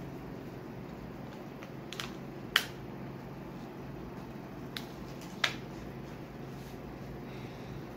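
Four short, sharp clicks of a hard-plastic elbow pad and its strap being handled as it is fastened onto a child's arm, the second and fourth clicks much the loudest.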